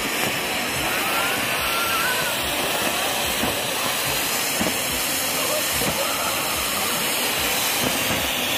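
Ground fountain firework (anar) spraying sparks with a steady, loud hiss.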